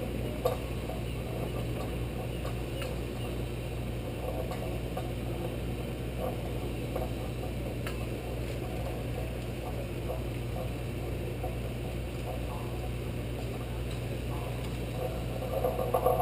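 Steady low hum with faint scattered ticks, then louder metallic clattering that builds near the end as the chain hoist's chain starts to move.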